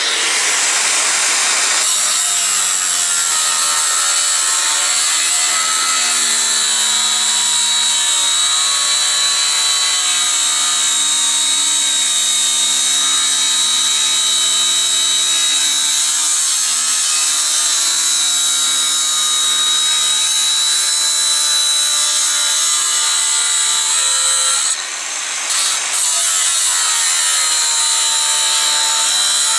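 Angle grinder cutting through 6 mm steel plate: a steady high motor whine over the continuous grinding noise of the disc, dipping briefly near the end.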